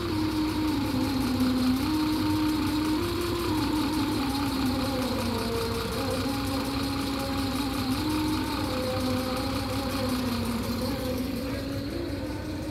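Diesel bus engine idling steadily, a low even rumble. Over it runs a sustained wavering tone that steps between a few pitches.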